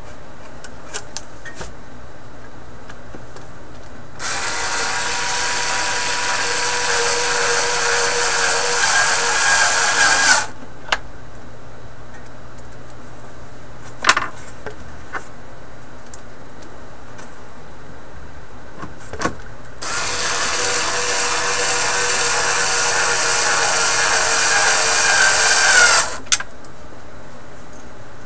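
A power tool runs twice, about six seconds each time, growing a little louder through each run and cutting off sharply with a click. A few separate clicks fall between the runs.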